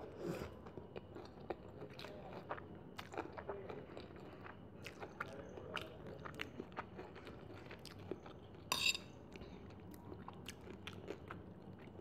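Close-miked chewing of chow mein noodles, a steady run of small wet clicks and crunches, with one brief louder noise about three quarters of the way through.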